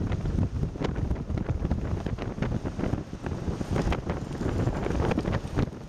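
Extreme storm wind buffeting the microphone in uneven gusts, with frequent popping and scattered sharp clicks, over the rush of heavy surf.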